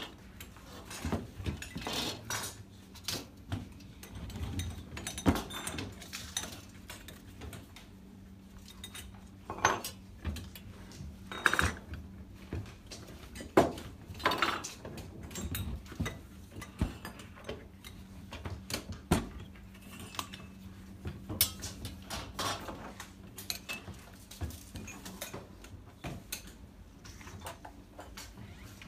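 Irregular metallic clinks and knocks of copper pipe and hand pipe benders being handled and worked, with a steady low hum underneath.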